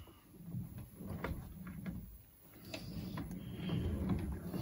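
Brierley drill grinder's workhead being moved by hand with the grinding wheel stopped: a few light metal clicks and a low sliding rumble as the freed head swings and shifts.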